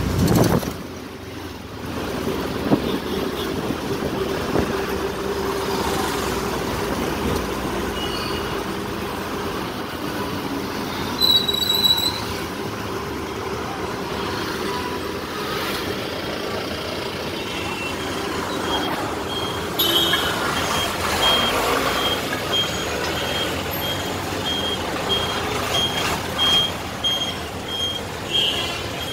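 Auto rickshaw ride heard from inside the open passenger compartment: the small engine running, with road and wind noise and passing traffic. A brief high beep sounds about 11 seconds in, and from about 19 seconds on a high beeping repeats about twice a second.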